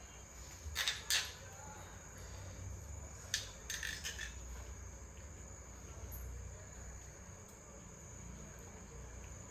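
A few short clicks and taps of a spoon against a dish, over a steady high-pitched hum in the background.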